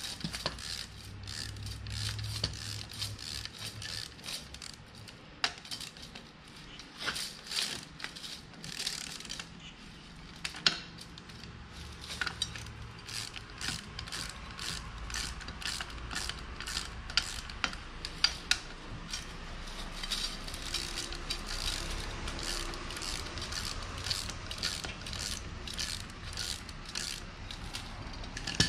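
Ratchet wrench clicking in repeated runs as bolts on the steel end plate of a street sweeper's main barrel broom are worked, with a few sharper knocks.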